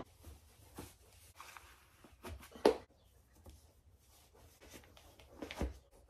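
Faint rustling and a few soft knocks of clothing and handling, the loudest about two and a half seconds in and again near the end.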